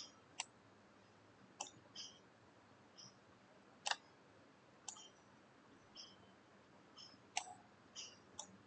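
Computer mouse button clicking at irregular intervals, faint sharp clicks as blocks are picked up and dropped. Short, faint, high-pitched blips fall between the clicks about once a second.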